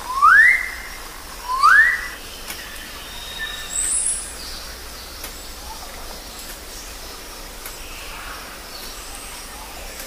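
A bird calling twice, about a second apart: two loud, rising calls, followed by fainter, higher chirps from other birds over a steady forest background.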